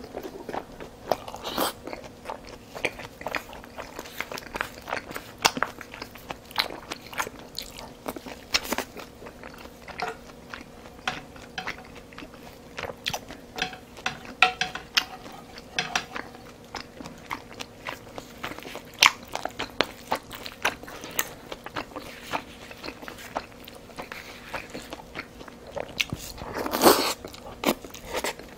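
Close-miked eating: chewing and biting of rice and stir-fried pork, with frequent sharp clicks of chopsticks and spoon on the bowl. Near the end there is a longer, louder slurp from the spoon.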